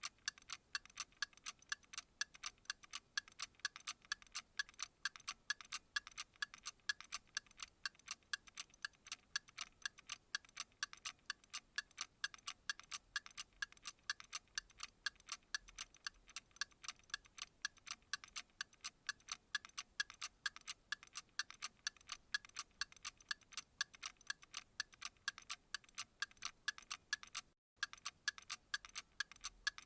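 Clock ticking steadily and quickly, thin and bright with no low end. The ticking drops out for a moment near the end, then carries on at the same pace.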